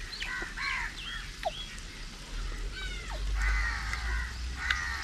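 Birds calling: several short calls, some dropping quickly in pitch, then a longer run of calls from about two seconds in until near the end.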